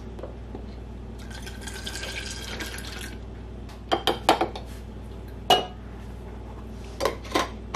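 Homemade coffee creamer pouring from a saucepan through a plastic funnel into a glass mason jar, a steady pour of about two seconds. Then come several short knocks and clinks as the funnel is lifted off and the glass jars are set down on the counter.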